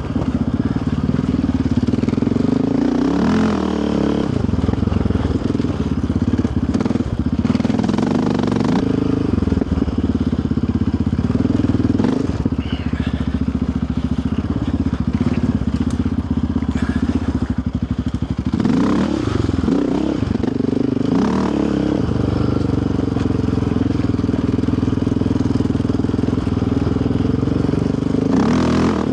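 Yamaha Raptor 700R sport quad's single-cylinder four-stroke engine running under way on a dirt trail. The engine pitch drops and climbs again twice, a few seconds in and again about two-thirds of the way through, as the throttle and gears change.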